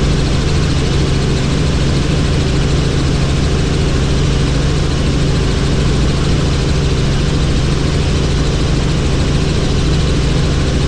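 Helicopter in flight, heard from on board: a steady, loud drone of engine and rotor with a constant low hum.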